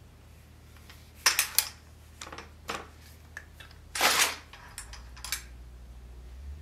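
Sword blade drawn from its leather-covered scabbard: a short scraping hiss about four seconds in, after a few sharp clicks as the sheathed sword is handled, with a couple of lighter clicks afterwards.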